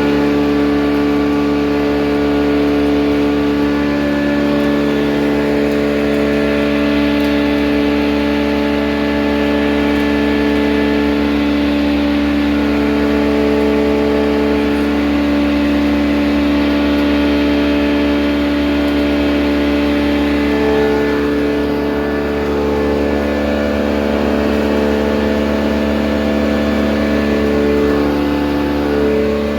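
Maize grinding mill running steadily as it grinds maize into flour: a loud, constant machine drone that holds one pitch throughout.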